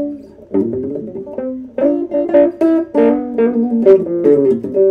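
Epiphone Wilshire P90 Reissue electric guitar through a tube amp, its tone control rolled all the way down to zero, played as a run of picked notes and chords and ending on a held chord. The rolled-off tone gives a swell with a nasally weirdness to it.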